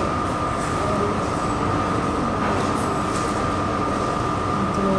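Steady hiss of room background noise carrying a constant high whine that does not change.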